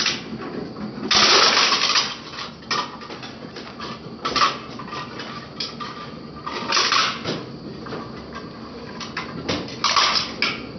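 Twin-shaft shredder's cutter blades crushing a hard plastic piece: loud crunching and cracking bursts about a second in, at about four seconds, around seven seconds and near ten seconds, over the machine's steady running.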